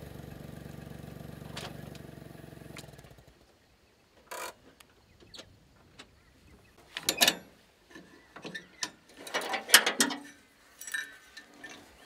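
A motor running steadily, fading out about three seconds in, followed by scattered sharp clicks and knocks.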